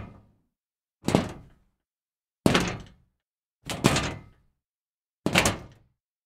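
Scrap metal being kicked: four separate hits, about a second to a second and a half apart, each a sharp metallic impact that rings briefly and dies away, with silence between. The fourth hit is a quick double strike.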